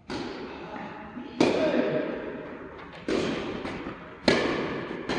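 Tennis balls struck by rackets in a rally: four sharp hits about one and a half seconds apart, each with an echo trailing off after it.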